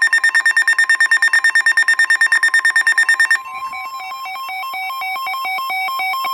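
Electronic emergency-alert tones from a weather alert broadcast. A loud, rapid, buzzy beeping at about ten pulses a second gives way about three seconds in to a choppier warble hopping between two pitches.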